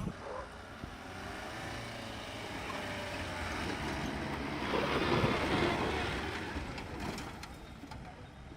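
An off-road vehicle's engine running under load, swelling to its loudest about five seconds in and then fading away.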